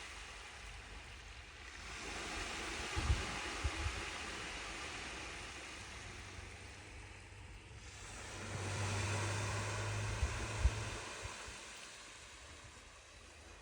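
Small sea waves lapping on the shore, washing in twice in slow swells and ebbing between, with a few low thumps of wind on the microphone.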